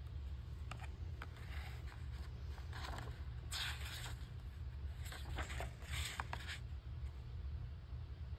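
Hardcover picture book opened and its pages turned by hand: several short papery rustles and scrapes, the loudest about three and a half seconds in, over a steady low hum.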